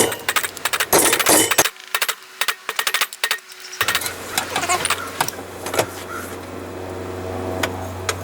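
Hammer blows on a hot railroad spike at the anvil, a quick run of sharp metallic strikes. About four seconds in, a steady low hum takes over, with a few more isolated knocks.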